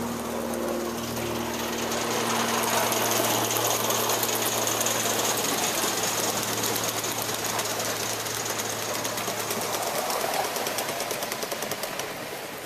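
Live-steam gauge 1 model steam locomotive and its goods wagons running past close by: a fast, even clatter of exhaust beats and wheels on the track, with a steady high hiss of steam.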